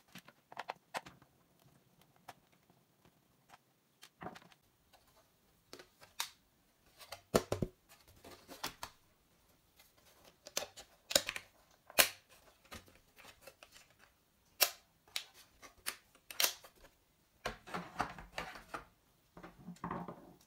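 Plastic bottom housing of a Panteon GS270P gaming keyboard clicking and knocking as it is prised loose and lifted off, in scattered sharp clicks, with a denser patch of rustling and scraping near the end as hands move over the exposed metal plate.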